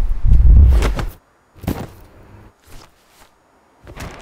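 Heavy, deep impact thuds of a fistfight in the first second. Then it drops to near quiet, broken by a few short, sharp knocks.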